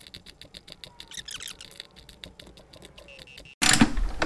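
Ratchet of a digital torque wrench clicking rapidly as it is swung back and forth to run down bolts. The clicking stops abruptly about three and a half seconds in, and a louder handling noise follows.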